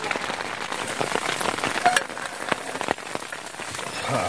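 Heavy rain falling steadily, with many separate drops tapping sharply through it.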